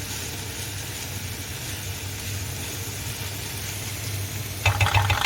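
Food frying in a pan over a steady low hum, then a brief rapid clatter of a utensil against the pan near the end.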